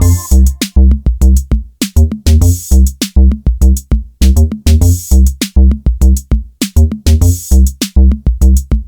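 Background music: an upbeat electronic track with a steady drum-machine beat, heavy kick drum and snare.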